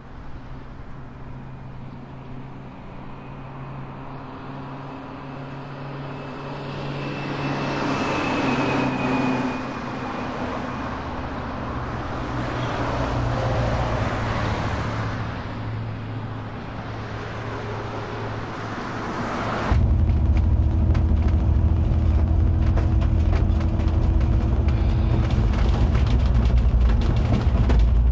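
Engine and road noise heard on board a moving road vehicle, swelling and easing twice with speed. About two-thirds of the way through it turns abruptly louder and heavier in the low end.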